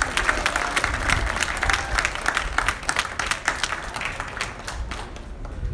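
Crowd applauding with hand claps, the clapping thinning out and dying away near the end.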